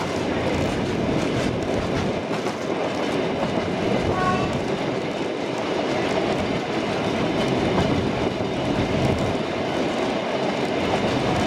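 Steady running noise of a 785 mm narrow-gauge train under way, its wheels rolling over the track, heard from an open carriage window. A brief faint high tone sounds about four seconds in.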